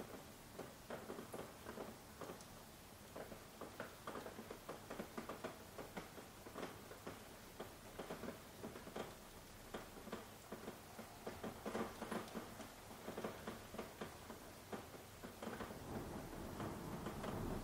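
Soft rain: many scattered drops tapping irregularly over a faint hiss, getting a little louder near the end.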